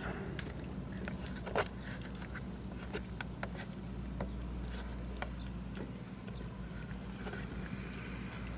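Old farm tractor engine running with a steady low rumble, with a few faint, scattered ticks.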